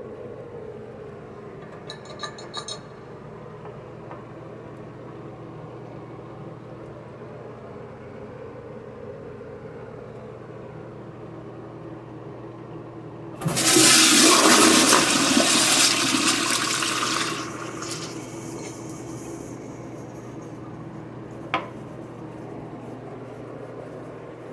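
Gerber Ultra Flush pressure-assist toilet flushing: a sudden loud whoosh about halfway through, lasting about four seconds, then trailing off into a quieter hiss. A few light clicks come about two seconds in and a single click near the end, over a steady low hum.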